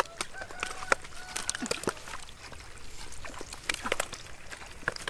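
Wet mud squelching, with irregular sharp slaps and smacks as hands dig through thick mud and caught fish flop about on it.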